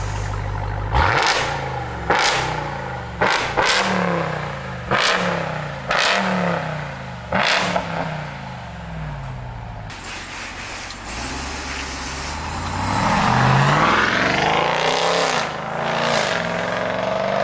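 2021 Ram TRX's supercharged 6.2-litre Hellcat V8 through a Borla Switchfire exhaust: it idles, then is blipped sharply about seven times, the note falling back after each rev. In the second half the truck pulls away and accelerates, pitch climbing, then dropping at an upshift.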